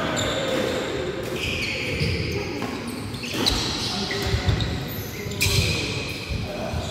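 Badminton rackets striking a nylon shuttlecock with sharp, quick hits, mixed with shoes squeaking and stepping on a wooden court floor, echoing in a large hall.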